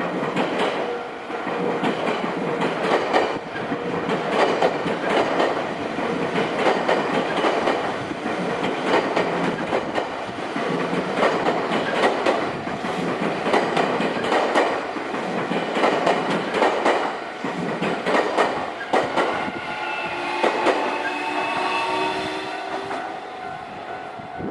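Train passing close by at a level crossing, its wheels clattering over the rail joints in a regular rhythm. Near the end a steady tone with several pitches sounds for about three seconds.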